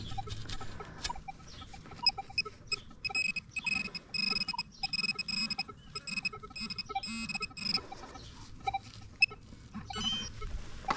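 Metal detector and pinpointer tones sounding in repeated short bursts, a high-pitched tone and a lower one switching on and off, as a buried coin is located. There are scraping and clicking sounds of soil being worked between the tones.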